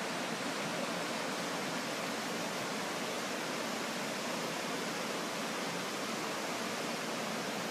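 Fast-flowing floodwater rushing past, a steady even noise with no breaks.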